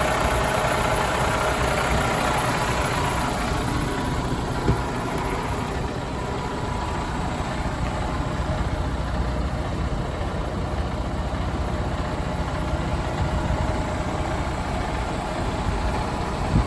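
Freightliner Cascadia semi truck's engine idling steadily. A higher hum fades away over the first few seconds, and there is a single short knock about four and a half seconds in and another near the end.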